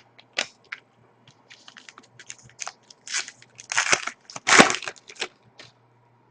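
Trading cards being handled and slid against one another: a run of small clicks and scrapes, with three louder sliding swishes between about three and five seconds in.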